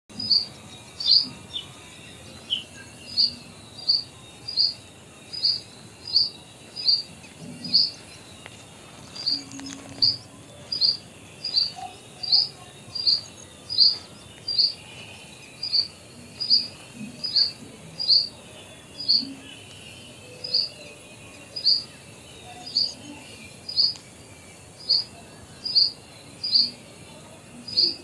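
Purple sunbird calling: a single short, sharp, high note repeated over and over, about one every three-quarters of a second, with a couple of brief breaks.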